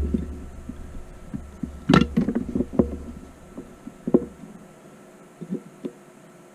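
Scattered light clicks and knocks from a coax connector and tools being handled on a workbench. Under them runs a low hum that stops about four and a half seconds in.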